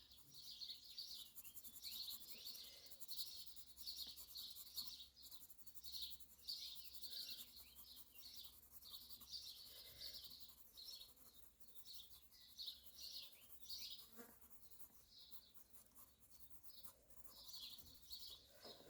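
Faint birdsong: small birds chirping and twittering in quick, repeated high notes without a break.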